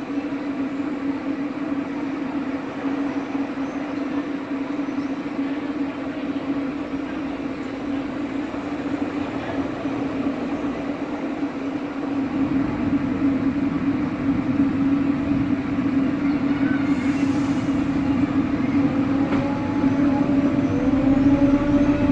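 Electric multiple unit at a station giving off a steady electrical hum. A deeper rumble builds from about halfway, and higher whining tones rise near the end, as the traction equipment comes up to power.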